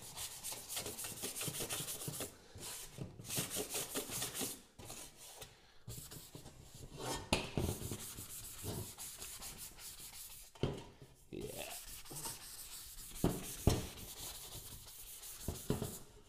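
Sandpaper being rubbed by hand over a bare sheet-metal scooter fender in quick, uneven back-and-forth strokes. It is scuffing the surface so the primer has something to grip.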